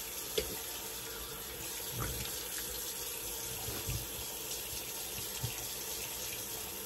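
Water running steadily from a sink tap, with a few soft knocks.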